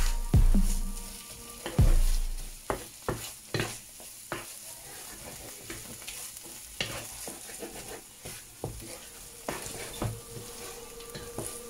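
Wooden spatula stirring and scraping rice in squid ink around a frying pan, over a steady sizzle of frying, with irregular scraping knocks throughout. Two deep thumps in the first couple of seconds.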